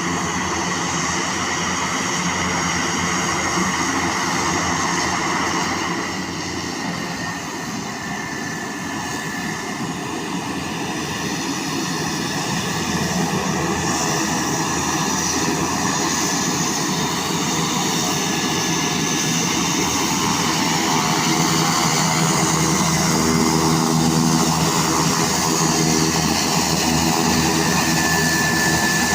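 Engines of a twin-engine airplane running at low power as it taxis, a steady drone that dips a little about six seconds in and grows louder and more tonal through the second half.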